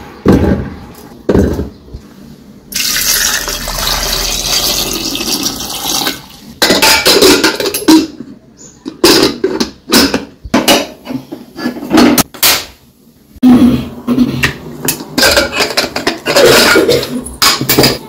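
Potatoes thudding into a steel pressure cooker, then water pouring in for about three seconds, followed by a long run of metal knocks and clatters as the cooker is handled and its lid put on.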